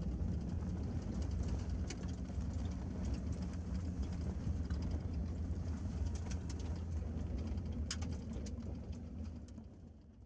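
Vehicle engine and road noise heard from inside the cabin while driving: a steady low drone with scattered rattles and clicks, fading out near the end.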